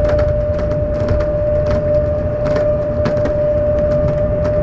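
Airport people-mover train running along its elevated guideway: a steady whine from its drive over a low rumble, with irregular clicks and rattles.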